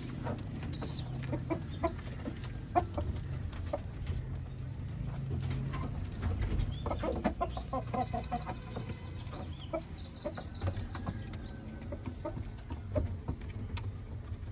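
Domestic pigeons cooing in their nest boxes, a low continuous murmur, with a run of higher clucking calls about seven seconds in.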